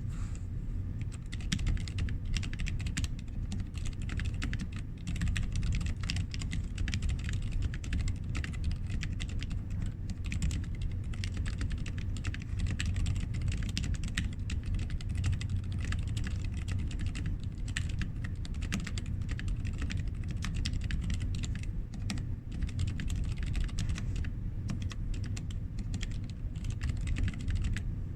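Continuous fast typing on a Sentraq S-60X 60% mechanical keyboard with lubed Zeal Healios linear switches and lubed, clipped, band-aid-modded stabilizers: a dense, uneven stream of keystroke clacks.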